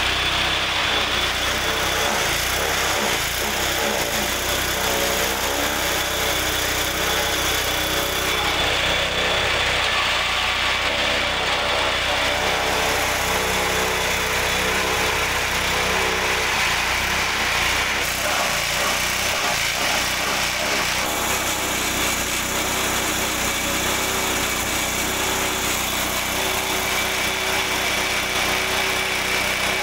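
Small petrol engine running steadily, driving a forage chopper as grass and stalks are fed in and cut into chaff.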